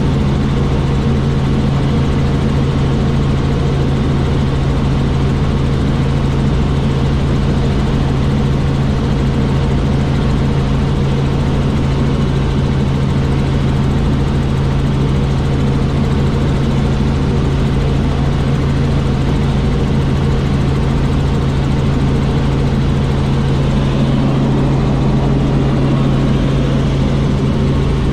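Helicopter in flight heard from inside the cabin: a loud, steady engine and rotor drone with a strong low hum that does not change.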